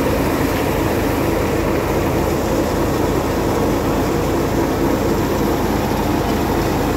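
Samrat threshing machine running steadily at speed, threshing harvested crop as it is tipped into the hopper by the tubful: a loud, even mechanical drone.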